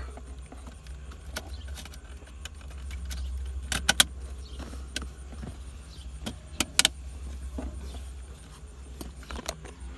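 Plastic gear shift console trim being handled and fitted back in place, with light rattles and scattered sharp clicks; the loudest are a quick pair of clicks about four seconds in and another near seven seconds.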